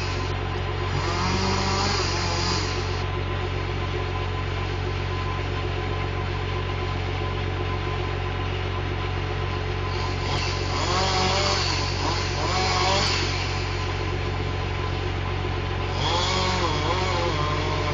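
John Deere 540E skidder's diesel engine idling steadily, heard from inside the cab. A chainsaw cuts in spells over it, revving up and down at the start, for a few seconds about ten seconds in, and again near the end.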